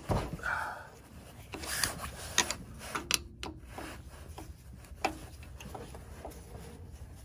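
A screwdriver working a Phillips screw out of a snowblower carburetor's mounting: scattered metal clicks and scraping, with a sharp click right at the start.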